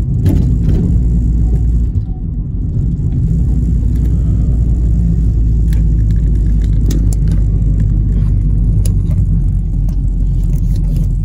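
Car driving slowly, heard from inside the cabin: a loud, steady low rumble of tyres rolling over a brick-paved road, with a few faint clicks.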